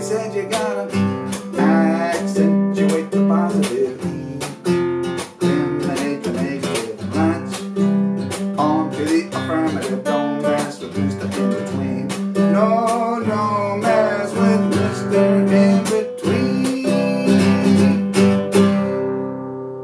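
Nylon-string classical guitar strummed briskly in a steady rhythm, with picked bass notes and short runs between strums. Near the end a final chord rings out and fades.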